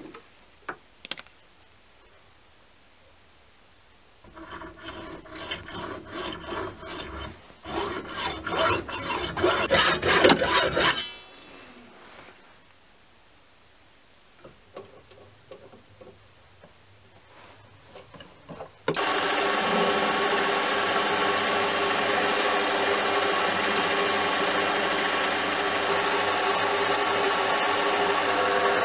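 Hacksaw cutting through brass round bar held in a vise, in rhythmic strokes that come faster toward the end of the cut, about 4 to 11 seconds in. About 19 seconds in, a mini lathe starts running steadily as it turns the brass piece.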